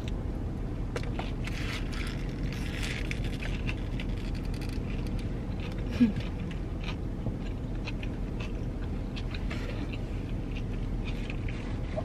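Close-up mouth sounds of someone chewing a cheeseburger and a chili pepper, small wet clicks and smacks, over a steady low hum inside a car. About six seconds in there is a short hummed 'mm'.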